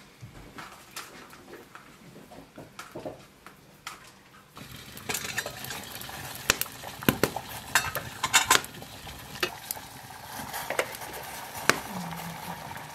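Faint clicks of apple slices being laid onto tart dough in a metal baking tray. About four and a half seconds in, a wood fire crackling, with sharp knocks of metal tongs shifting the burning logs, then the steady rumble of water boiling in a black kettle hung over the fire.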